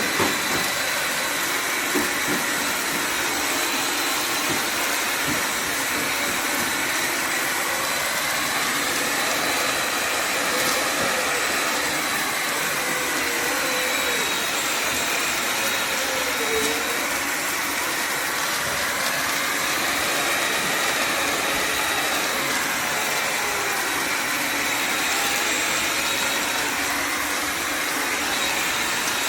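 Bissell Symphony Pet all-in-one steam mop and vacuum running steadily: a constant rushing motor noise with a thin, steady high whine over it.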